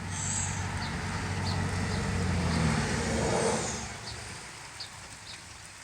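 A motor vehicle's engine and tyres passing by, growing louder for about three seconds and then fading away.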